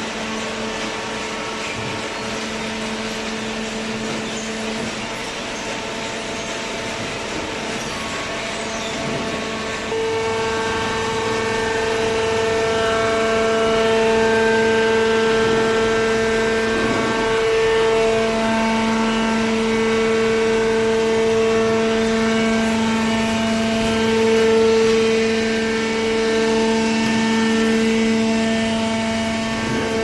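Hydraulic cardboard baler running: its electric motor and hydraulic pump give a steady hum with a whine. It gets louder and fuller about ten seconds in.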